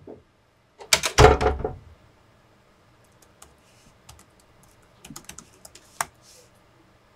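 Laptop keyboard typing: scattered key clicks, thickening into a quick run of keystrokes near the end with one sharp click. Near the start there is a louder burst of noise lasting about a second.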